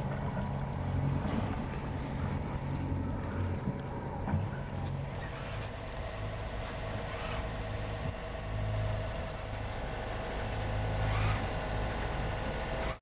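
Hunter 50 center-cockpit sailboat under way: a steady low drone with wind and water noise over it, cutting off suddenly at the end.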